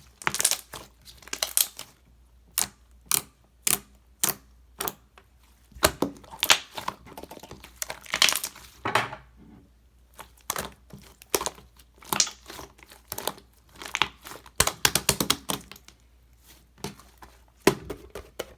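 Milk slime being squished and pressed by hand, giving short bursts of crackling and popping about once a second, with a few longer drawn-out crackles.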